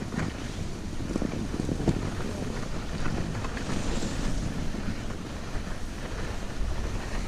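Wind buffeting the camera microphone in a steady low rumble while skiing downhill, with skis hissing and scraping over groomed snow and a few small clicks.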